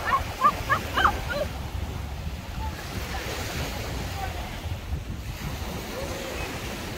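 Surf washing onto a sandy beach with wind buffeting the microphone. In the first second and a half, a handful of short, sharp high-pitched calls are the loudest sounds.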